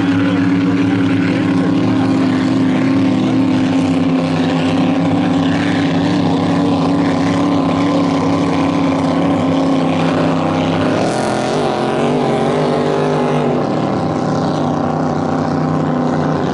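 Grand Prix hydroplane's supercharged Chevrolet V8 running hard at a steady pitch; about eleven seconds in the engine note shifts and wavers.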